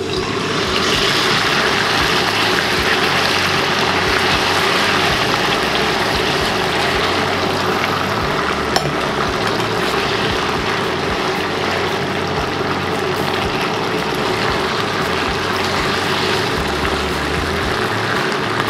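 Starch-coated diced chicken thigh frying in a wok of hot oil: a loud, steady sizzle as the pieces par-fry, stirred with chopsticks. A single sharp click about nine seconds in.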